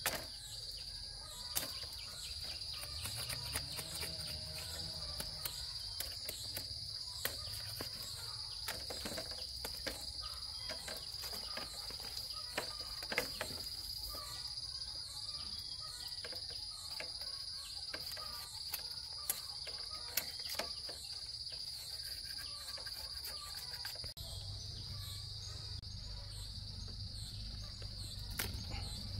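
Insects chirring in a steady high-pitched drone, with scattered sharp clicks and knocks.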